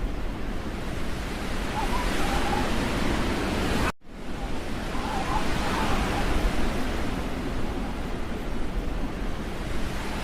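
Steady rushing noise, like wind, broken by a sudden momentary dropout about four seconds in.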